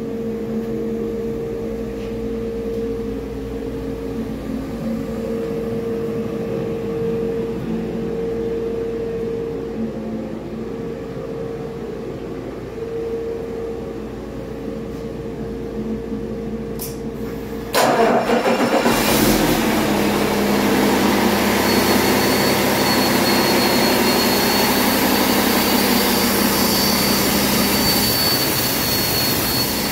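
2018 Cummins X15 inline-six diesel engine running on a test stand, first at a steady idle. About eighteen seconds in it turns much louder and rougher, and a steady high turbocharger whine runs on top.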